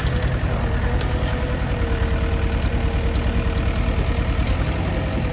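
JCB 3DX backhoe loader's diesel engine running steadily, an even low rumble with a thin steady whine above it.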